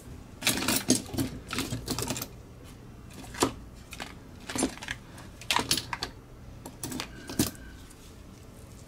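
Irregular sharp clicks and light clattering of small hard objects being handled, in uneven clusters, over a faint steady low hum.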